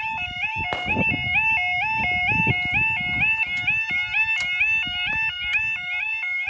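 Level crossing audible warning alarm sounding continuously: a two-tone warble, stepping back and forth between a lower and a higher pitch about twice a second. A knock cuts through it about a second in.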